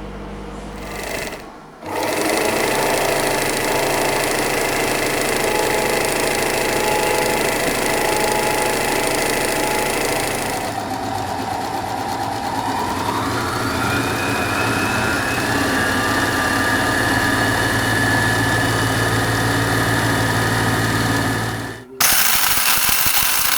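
Small electric motor running steadily, its whine gliding up in pitch about halfway through and holding there. Near the end it cuts off abruptly, and a brighter, harsher whirring starts.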